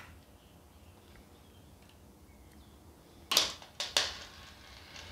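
Small hardware being handled: a faint click right at the start, then about three seconds in a short loud clatter followed by two sharp knocks.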